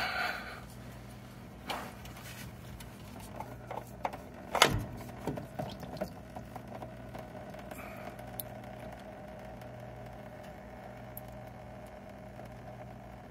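Faint knocks, clicks and scrapes from a spin-on oil filter being turned and worked loose by hand from its adapter. The loudest knock comes about four and a half seconds in, over a steady low hum.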